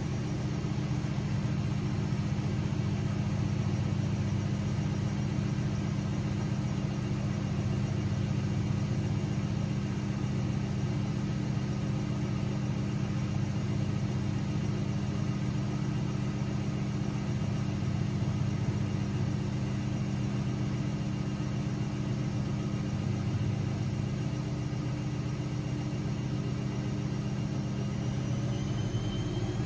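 AEG Lavamat 6610 washing machine spinning its drum at a steady high speed, with a steady motor hum and whine. Near the end the higher whine starts to rise in pitch as the motor speeds up.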